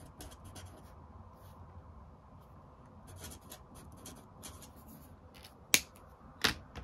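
Faint scratching of a brush-tip marker writing on paper in short strokes, followed near the end by two sharp clicks a little under a second apart.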